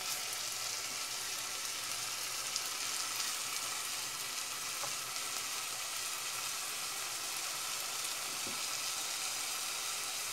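Diced fish and onion sizzling steadily as they are lightly sautéed in a pot, with a wooden spoon stirring them at the start.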